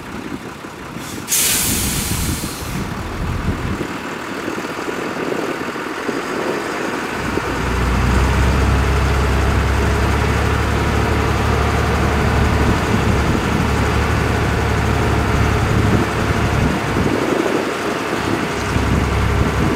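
Dongfeng Hoàng Huy 10-tonne dump truck: a short air-brake hiss about a second in, then from about seven seconds its diesel engine runs up to a steady, higher drone as it drives the hydraulic hoist that raises the tipper bed.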